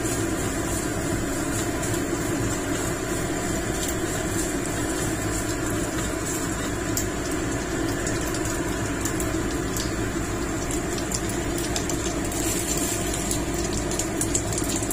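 A steady, unchanging mechanical hum like a small motor running, with a few faint light clicks.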